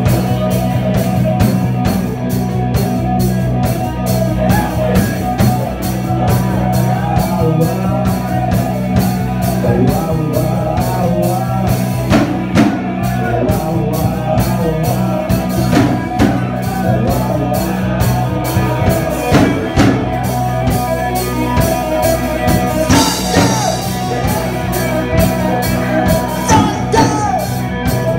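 Live rock band playing loudly: electric guitars, bass guitar and drum kit, with a man singing into a microphone.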